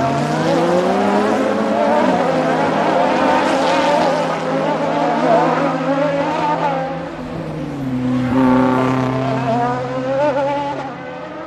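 Race car engine rising in pitch over the first couple of seconds, then holding a steady high note. About seven seconds in it drops to a lower note and holds it, with a brief louder swell near eight seconds.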